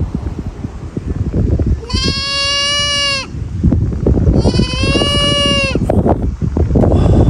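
A goat bleating twice, two long calls each lasting over a second, the second starting about four and a half seconds in.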